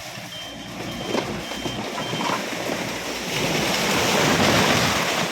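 A Yanmar ViO55 excavator pushing over a tree. Four short high beeps sound in the first two seconds. Then a loud rushing noise of branches and leaves builds from about three seconds in and peaks near the end as the tree goes over.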